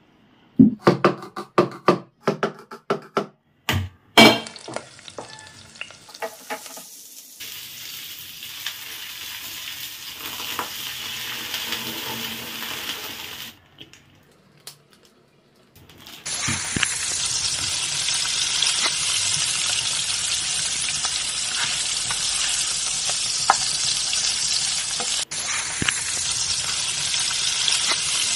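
A few sharp clicks and knocks, then onions sizzling in a pan with a steady hiss. After a short break, a pan of instant noodles boils hard on a gas stove with a louder, even bubbling hiss and occasional pops.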